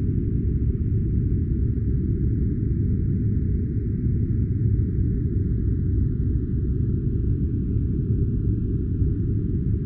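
Steady, deep white-noise sleep-sound track, held at an even level with nothing changing.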